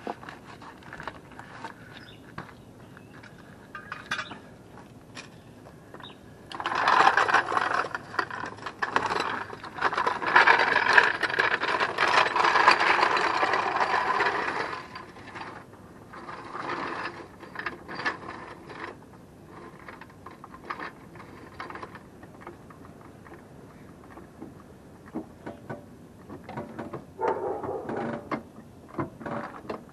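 Metallic clicking and clattering, like tools or jack hardware being handled. Scattered single clicks, with a loud stretch of dense rattling from about seven to fifteen seconds in, and a few more bursts near the end.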